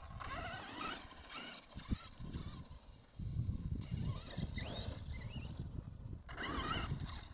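Electric RC truck's brushless motor whining up and down in pitch with the throttle in three spells, over a low rumble of tyres and chassis on a dirt trail.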